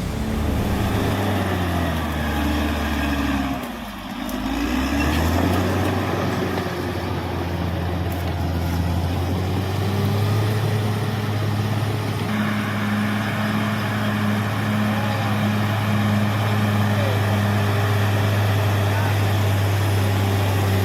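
Caterpillar D6R XL bulldozer's diesel engine running, its note dipping and recovering about four seconds in, then holding steady.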